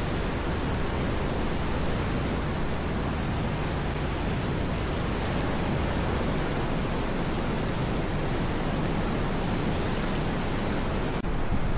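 Steady wind on the microphone, an even rush with heavy low rumble, that changes abruptly near the end.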